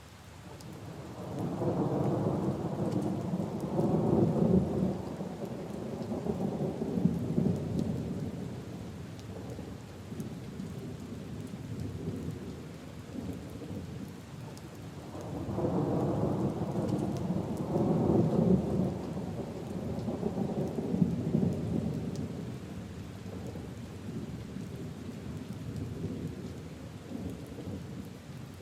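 Steady rain with two long rolls of thunder, one starting about a second in and another about halfway through, each swelling and fading away over several seconds.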